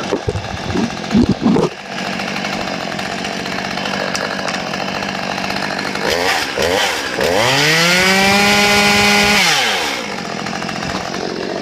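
Stihl MS 192 TC two-stroke chainsaw idling, blipped a few times, then revved up about seven seconds in, held at high revs for about two seconds and dropped back to idle.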